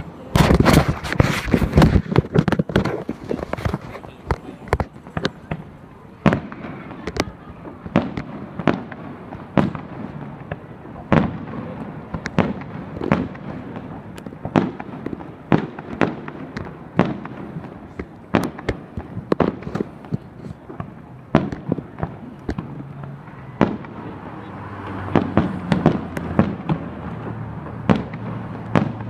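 Fireworks display: a fast cluster of bangs in the first few seconds, then shells bursting one after another about every half second to a second.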